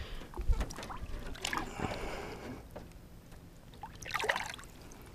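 Lake water splashing and sloshing as a largemouth bass is lowered into it by hand and released, in a few short splashes, the loudest about four seconds in.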